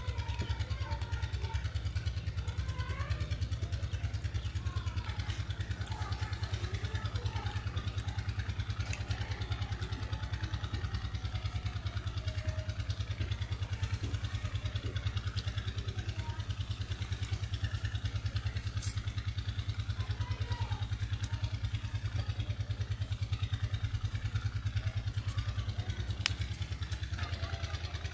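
A small engine running steadily: a low drone with a fast, even throb.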